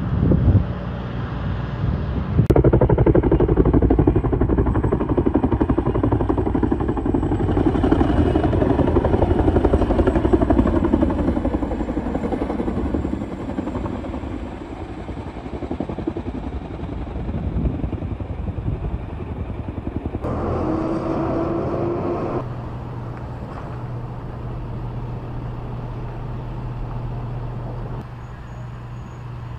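Loud rushing noise of a wildfire, with a fast chopping that fits a firefighting helicopter over the flames. A pitched tone sounds briefly about twenty seconds in. Then a fire engine's motor hums steadily.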